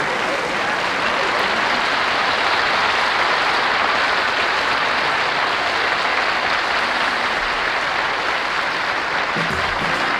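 Audience applauding steadily after a song ends.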